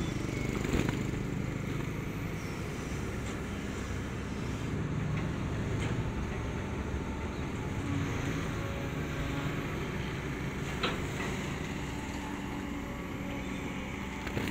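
Long-reach excavator's diesel engine running steadily under hydraulic load as the bucket scrapes and spreads bank soil, with a couple of brief knocks.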